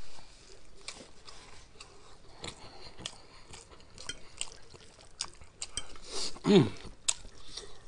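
Metal fork clinking and scraping on the plate while twirling noodles, a scatter of small clicks. About six and a half seconds in comes a short vocal sound from the eater, rising then falling in pitch; it is the loudest moment.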